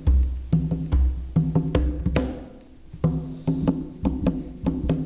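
Conga drum played by hand: a quick run of sharp slaps and open tones with deep bass strokes mixed in, easing off briefly a little past two seconds in before picking up again.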